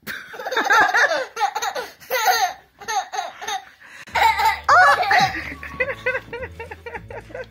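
A young child laughing hard in repeated bursts of high-pitched giggles, quickening into a rapid run of short laughs near the end. About four seconds in, a low stepped hum starts underneath.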